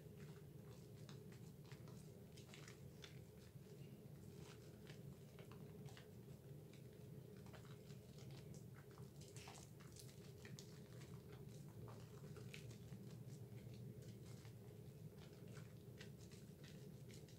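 Faint wet squishing and crackling of thick soap lather as hands rub and turn a Dove bar soap, many small irregular clicks over a steady low hum.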